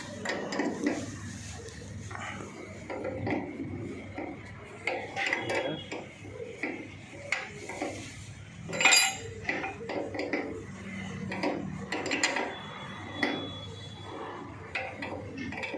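Spanner and metal parts clinking and knocking irregularly as the bolts holding a tractor's radiator are undone, with one louder knock about nine seconds in.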